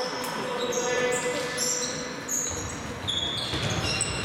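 Futsal play on an indoor court: many short high shoe squeaks on the hall floor, mixed with knocks of the ball. A low rumble comes in about halfway through.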